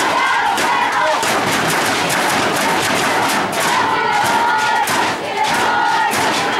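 Spectators celebrating a touchdown: rapid, loud banging of noisemakers or drums over crowd shouting, with a wavering held tone in the first second and again in the second half.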